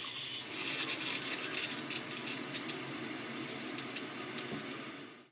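Water hissing and rushing through a John Guest stop valve and quarter-inch tubing as the valve is opened to feed the drinking water purifier. It starts suddenly and loud, eases off gradually, and cuts off abruptly near the end.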